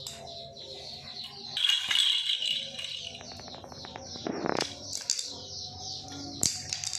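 Irregular rattling and clicking from a small object handled and knocked against a tiled floor, with a run of quick clicks about halfway through and a sharper knock soon after.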